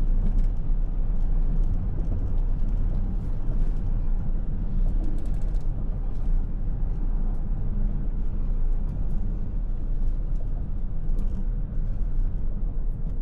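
Steady low road and tyre rumble inside the cabin of a Ford Territory hybrid SUV driving along, with a few faint ticks.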